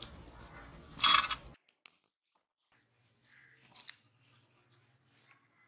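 A brief loud burst of noise about a second in, from hands working with food and bowls, then the sound cuts out suddenly. A few faint taps and one sharper click follow as a knife and a halved red onion are handled on a wooden cutting board.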